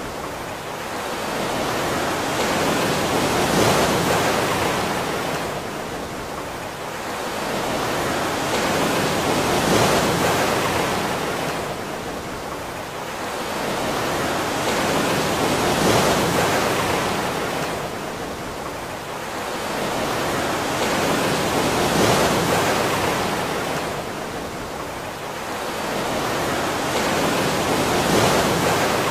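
Ocean surf: waves washing in and drawing back, swelling and fading about every six seconds.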